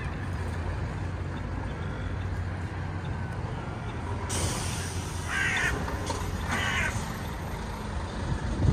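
A crow cawing twice, two short harsh calls about a second apart, over a steady low rumble of street traffic. A brief hiss runs just before the first caw, and a thump comes near the end.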